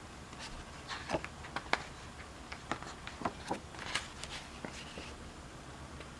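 A dozen or so small, sharp clicks and taps, irregularly spaced over a quiet background.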